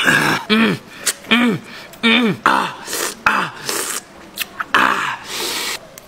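A man's short strained vocal sounds, grunts and coughs that rise and fall in pitch about once a second, with sharp breathy gasps between them: his reaction to eating a very sour lime smothered in chamoy and chili-salt.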